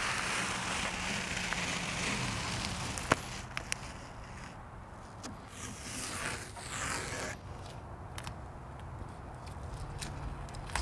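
Blue painter's masking tape being peeled off a car's freshly applied roll-on bedliner coating while it is still tacky, a crackling, scraping tear. It comes in two stretches, one longer at the start and a shorter one past the middle.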